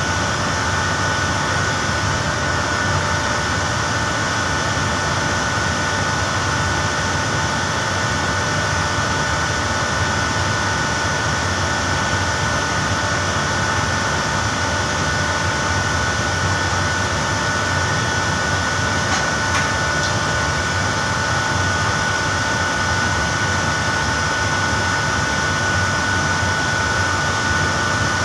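Air-conditioning plant machinery running steadily: a constant hum and hiss with a thin, high, steady whine.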